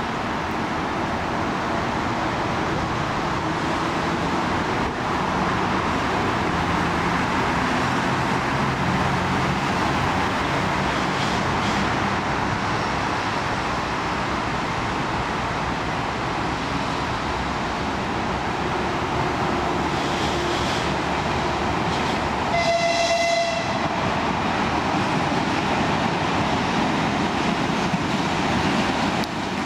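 TU7A narrow-gauge diesel locomotive running steadily as it approaches hauling a passenger train, its V12 diesel engine and rolling stock making a continuous rumble. About three-quarters of the way through, the locomotive's horn sounds once, a short blast of about a second.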